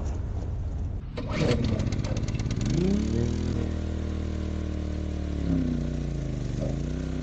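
A small engine starting: a rattle of clicks, then it catches, speeds up and runs steadily, its speed sagging and recovering twice near the end.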